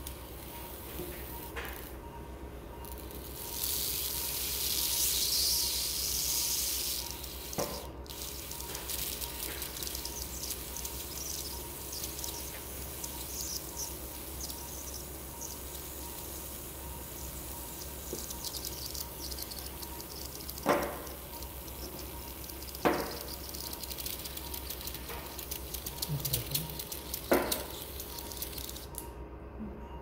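Operating-theatre background during eye surgery: a steady low hum with a faint steady tone, a hiss for a few seconds near the start, and sharp clicks at irregular intervals, three of them in the last third.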